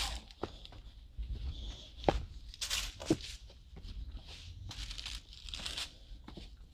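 Footsteps crunching and scraping on a rocky, leaf-strewn trail, in irregular steps with a few sharper knocks, over a low rumble.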